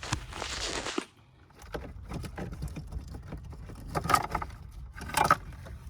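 Alarm wiring harness being pulled out from under a car's dashboard: about a second of rustling and scraping, then scattered clicks and two louder rattles of wires and plastic connectors near the end.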